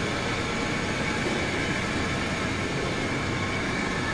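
Roll heat transfer machine running: a steady mechanical rushing hum with a faint high whine held throughout.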